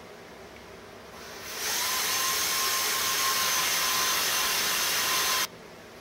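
Cordless drill boring a hole into a white oak radius bullnose. The motor spins up about a second and a half in, runs with a steady whine for about four seconds, then stops suddenly.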